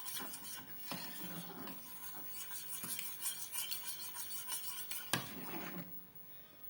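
A spoon stirring and scraping round a small pot of cornstarch and frankincense water heating on a gas burner, as the mixture starts to thicken into a cream. The strokes are irregular, with a sharp knock of the spoon about five seconds in and quieter stirring near the end.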